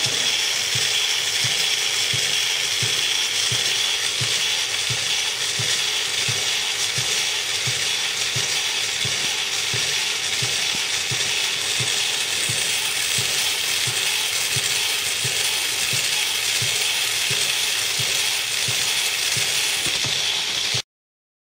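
Small electric motor and gearbox working a doll's cam-driven crawling legs: a steady high whine with a soft, regular knock about twice a second. The sound cuts off suddenly near the end.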